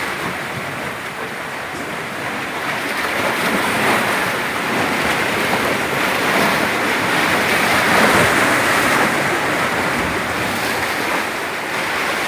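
Sea surf breaking and churning against shoreline rocks and pier pilings: a steady rushing wash that swells about eight seconds in.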